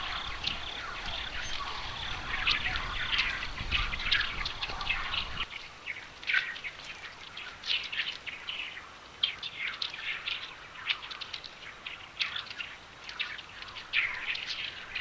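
Small birds chirping outdoors, many short separate calls throughout. A low rumble underneath stops abruptly about five seconds in.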